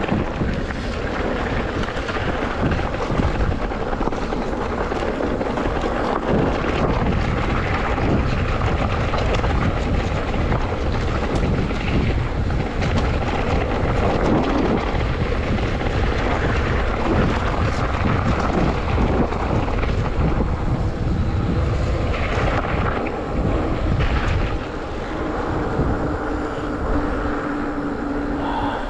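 Wind buffeting the microphone of a moving rider, a steady rumbling rush, with a faint steady hum joining in near the end.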